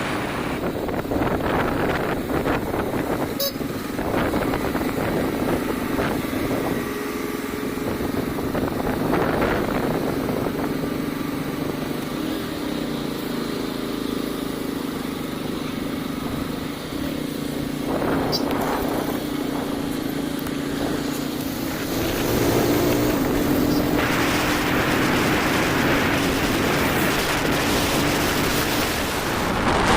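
Vehicle engines running steadily with one droning tone, growing louder about three-quarters of the way through.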